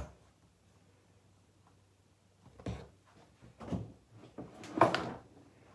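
Handling noises: a few short knocks and rustles as makeup bags and items are picked up and set down, starting about two and a half seconds in, the loudest near the end.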